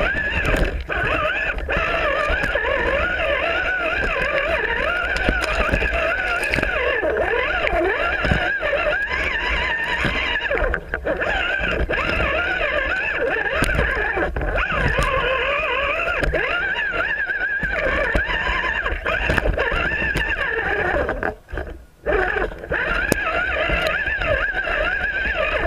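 RC rock crawler's electric motor and gearbox whining, the pitch wavering up and down with the throttle as it crawls over rocks, with knocks of the chassis and tyres against stone. The whine cuts out briefly a little after twenty seconds in, then resumes.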